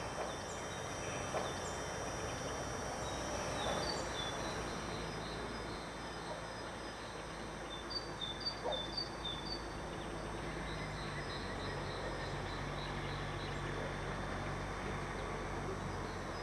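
Birds chirping in short repeated phrases over the low hum of an MK45 narrow-gauge diesel locomotive with a Caterpillar C15 engine, moving slowly with its carriages. The engine hum grows stronger about two-thirds of the way in, and a few light knocks come near the middle.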